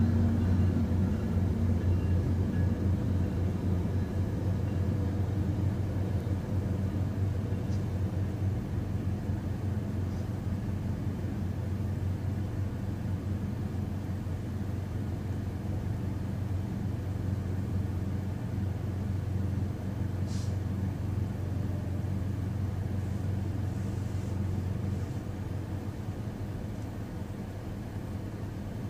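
Low, steady rumble of a Tri-Rail commuter train passing over the crossing, slowly fading as it moves away.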